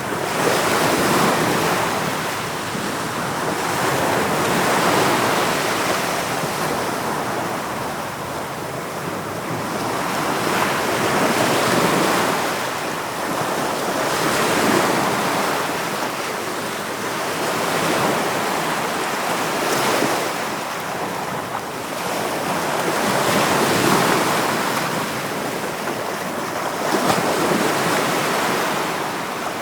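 Ocean waves breaking on the shore, the surf swelling and ebbing every few seconds in a continuous wash.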